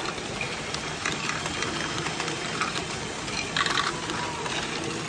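LEGO Great Ball Contraption modules running: Technic motors and gears whirring steadily, with plastic balls clicking and rattling through the mechanisms and a brief louder burst about three and a half seconds in.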